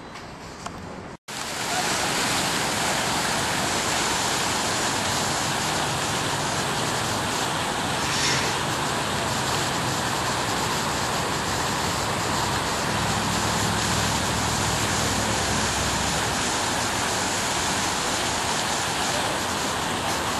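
Fountain jets splashing, a loud, even rush of falling water that starts suddenly after a brief dropout about a second in, with a faint low hum underneath for part of it. Before the dropout there is quieter city background noise.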